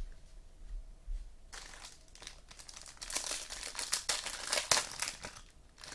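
Trading-card pack wrapper being torn open and crinkled by hand, a dense crackling that starts about a second and a half in, grows busiest in the middle and dies down just before the end.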